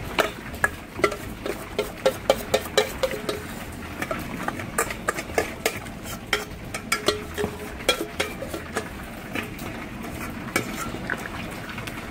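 A metal spoon clinking and scraping against a steel plate and bowl as roasted ground coconut paste is scraped off into a basin of cooked bone-in meat, then a long ladle stirring the thick mixture. Irregular clinks come a couple of times a second, some ringing briefly.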